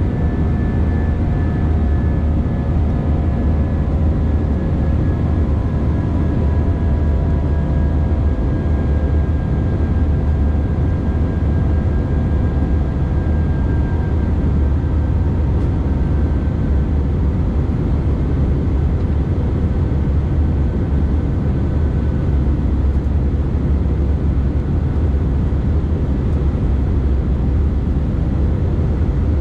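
Cabin noise of an Airbus A319 climbing after takeoff: a steady, deep rumble of the engines and rushing air. A few faint whining engine tones drift slowly down in pitch and fade out over the first half.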